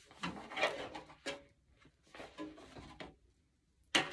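Handling noise from a music book on a stand: rustling and light knocks, with a sharp loud knock at the very end.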